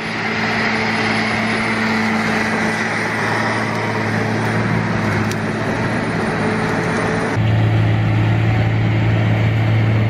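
John Deere tracked sugarcane harvester working in the field: a steady diesel engine hum over a wide wash of machinery noise. The low hum grows stronger about seven seconds in.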